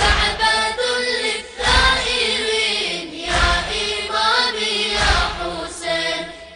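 Shia devotional chant for Imam Husayn: a choir of voices chanting a melody, with a deep thump about every 1.7 seconds keeping the beat.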